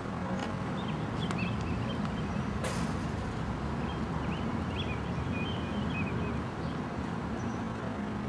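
Outdoor ambience: a steady low rumble with short bird chirps scattered through it, and a single sharp crack about two and a half seconds in.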